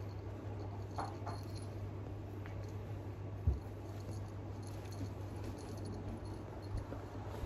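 Steady low hum, with faint rustles and small clicks as a puppy is petted, and one soft low thump about three and a half seconds in.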